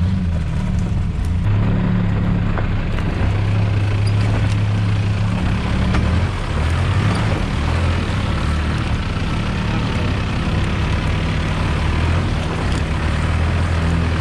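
Engine of a 4x4 off-road vehicle running while under way, a steady low drone that shifts a little in pitch, over a haze of tyre and wind noise.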